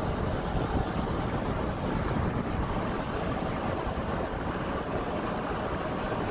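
Wind buffeting a phone's microphone from a moving car, a steady rumbling rush with the car's road noise underneath.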